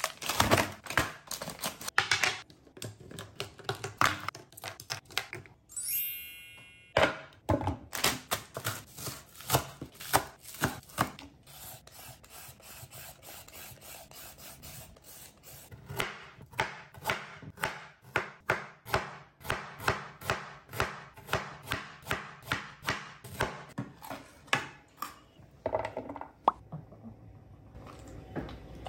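Food being prepared on a wooden cutting board: a run of sharp cuts and knocks, including scissors cutting open a plastic bag, and in the second half a vegetable peeler scraping strips off a carrot at about two strokes a second.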